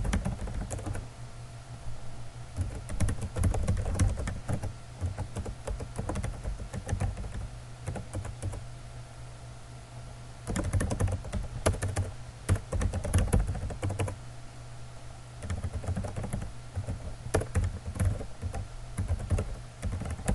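Typing on a computer keyboard: quick runs of keystrokes in bursts, with short pauses between phrases. A low steady hum lies underneath.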